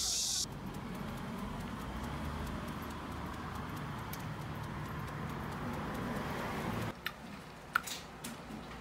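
A small dog's claws tapping lightly and quickly on paving stones as it trots along on a leash, over a steady hum of street traffic. The sound cuts off about seven seconds in, leaving a quieter background with a few sharp clicks.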